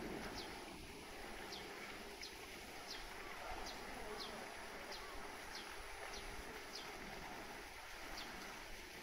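Steady wash of pool water and outdoor background noise. Over it, a short high chirp falling in pitch repeats again and again, roughly every half to two-thirds of a second.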